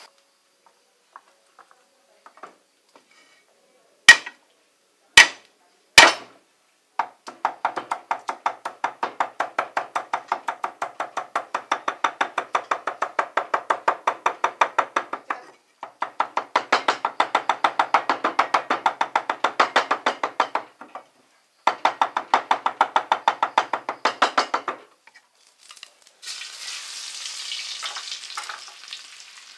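Cleaver striking a round wooden chopping block: three single heavy chops, then rapid, even chopping in three long runs as meat is minced. Near the end, food starts sizzling as it fries in a wok.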